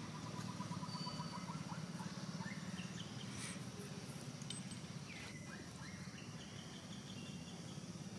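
Outdoor woodland ambience: birds calling in the background, an even trill at the start and then scattered short chirps, over a steady low hum.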